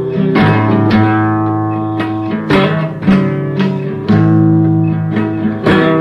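Guitar music: an acoustic guitar strumming chords, each strike sharp and ringing out, in an instrumental passage without singing.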